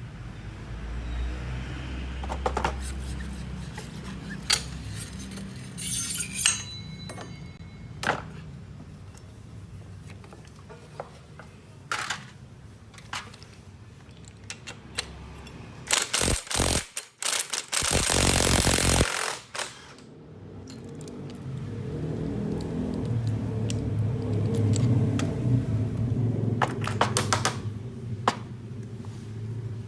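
Metal tools and scooter CVT parts clicking and clinking as they are handled during disassembly, with a loud rushing noise for about three seconds around the middle.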